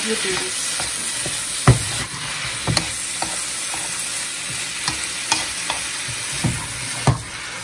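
Green beans and pork stir-frying in a nonstick wok: a steady sizzle, with a wooden spatula scraping and knocking against the pan several times, the sharpest knock a little under two seconds in.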